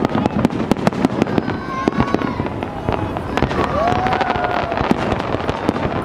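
Large aerial fireworks display: a dense, unbroken barrage of bangs and crackles from many shells bursting close together.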